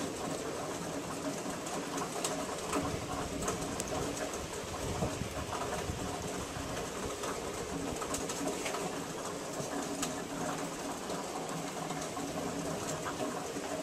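Rain falling and dripping at the tail end of a thunderstorm, with scattered sharp drip clicks and a low, steady pulsing call underneath.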